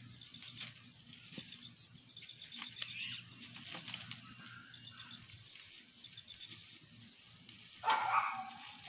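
A jackal caught in a trap gives one loud yelp of distress near the end. Before it there is only a faint low rumble with soft, repeated high chirps.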